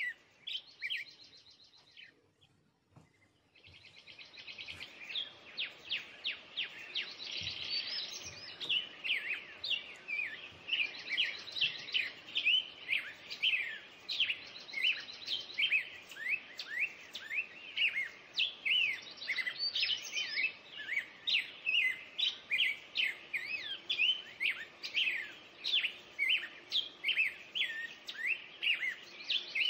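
Birdsong: many quick, repeated chirps and short trills, dense and continuous, with a brief lull about two to four seconds in.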